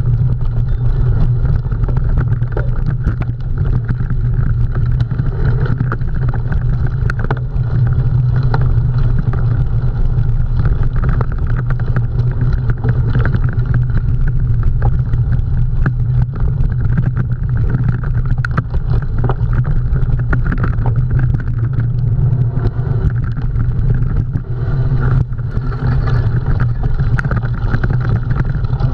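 Steady wind rush and low rumble on a camera riding along with a cyclocross bike, with frequent clicks and rattles as the bike jolts over rough ground.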